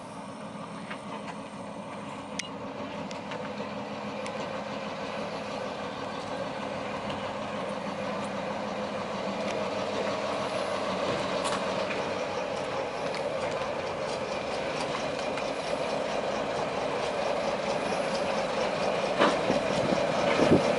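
Fowler diesel shunting locomotive with a Rolls-Royce engine running as it rolls slowly towards the listener, its engine growing steadily louder as it nears. Scattered sharp clicks from the wheels on the rails.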